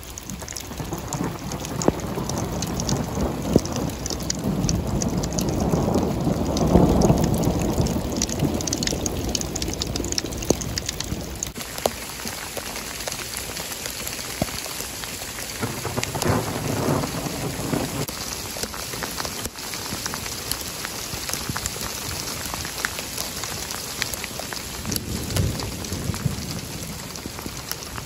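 Heavy rain with pea-size hail pattering on the ground, with many small sharp ticks. A long roll of thunder builds and peaks about a quarter of the way in, followed by a shorter rumble a little past the middle and a faint one near the end.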